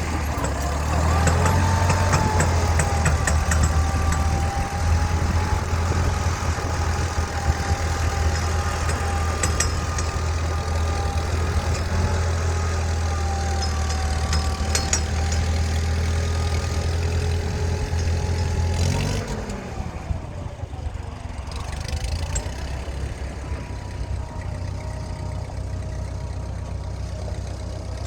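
Ford 8N tractor's four-cylinder engine running steadily; about two-thirds of the way through its pitch drops and it settles quieter and lower.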